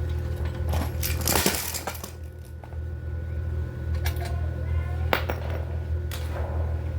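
Small metal parts clinking and knocking a handful of times, with a brief scraping rattle about a second in, over a steady low hum.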